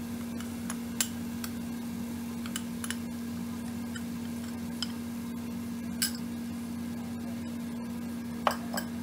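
Sauce mixture sizzling faintly in a hot frying pan of onions and capsicum, with a handful of short sharp pops and clicks, over a steady low hum.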